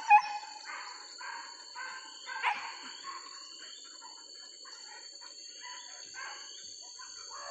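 Hunting dogs yelping and baying, fainter now: a run of repeated high calls that thin out over a few seconds, over a steady high-pitched hum.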